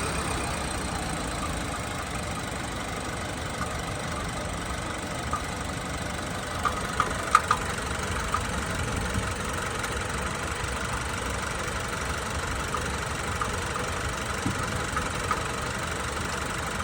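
Chevrolet truck engine idling steadily with a knock, which the owner suspects at only 36,000 miles. A few sharp clicks come about seven seconds in.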